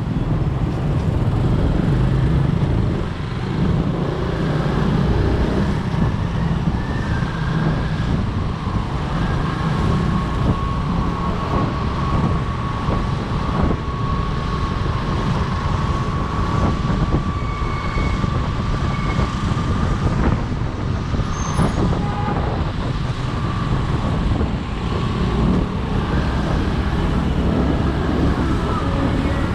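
Motorcycle engine running at low speed in slow, stop-and-go traffic, with the noise of the cars and trucks around it.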